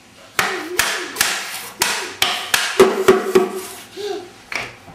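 Toddler banging a wooden drumstick on a wooden toy train table. There are a dozen or so sharp knocks at an uneven pace of two to three a second.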